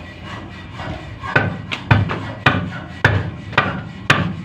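Heavy wooden block striking the hub of a radiator water pump, a series of dull knocks about two a second, driving the pump's parts home onto their new bearings.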